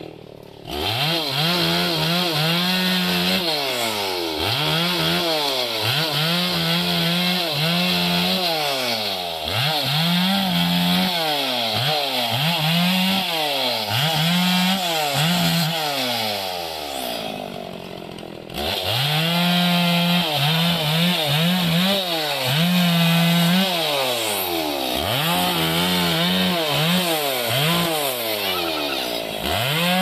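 Orange petrol chainsaw cutting through green branches, its engine revving up and falling back over and over, about once a second, with a short lull about halfway through.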